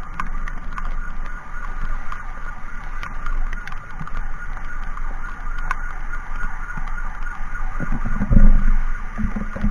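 Emergency siren warbling steadily over a constant low wind rumble on a motorcycle-mounted camera, with two loud low-pitched blasts near the end.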